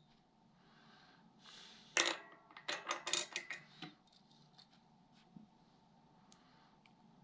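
Bicycle cassette sprockets and spacer clinking and clicking, metal on metal, as they are aligned and slid onto the rear hub's freehub body. There is a cluster of sharp clinks about two to four seconds in, then a few scattered ticks.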